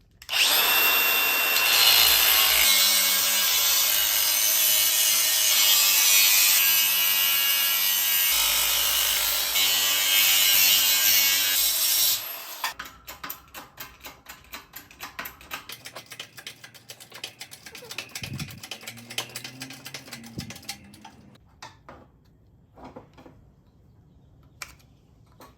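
Power tool cutting steadily for about twelve seconds before stopping abruptly, taking a piece off a shock absorber so its bushing can go into a press. A run of quieter, irregular clicks and rattles follows.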